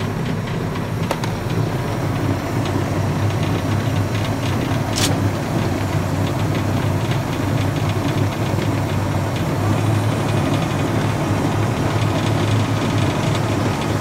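Tractor running with a Shelbourne Powermix Pro Express diet feeder hitched behind it: a steady low hum, a little stronger in the last few seconds, with one sharp click about five seconds in.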